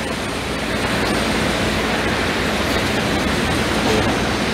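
Car frame straightener's pump running steadily, a loud even rushing noise, as its pulling tower moves.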